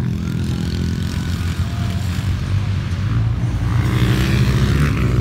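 Underbone motorcycle engines running hard during a dirt flat-track race. The engine noise swells about four seconds in.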